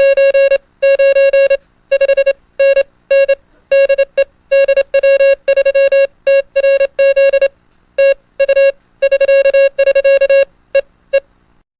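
Morse code sent as a beep tone: a quick run of short dits and longer dahs in groups separated by short gaps, stopping shortly before the end.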